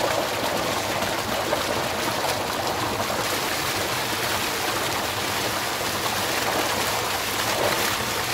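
A heavy jet of water pouring from a pipe into a concrete tank, gushing and splashing steadily, with hands being rinsed under the flow.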